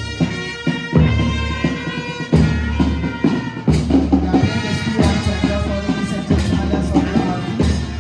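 School brass band playing a march, with held brass chords over a heavy drum stroke roughly every second and a quarter.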